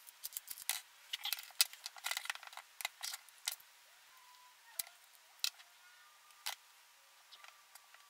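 Light metallic clicks and ticks of small metal parts being handled: a shim and set screw being fitted into a DINSE connector on a welding cable. The clicks come thick and irregular for the first few seconds, then thin out to a few scattered ticks.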